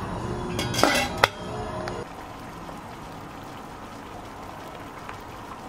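Pot of water boiling, a steady bubbling hiss, with a short clatter and a sharp knock of cookware about a second in.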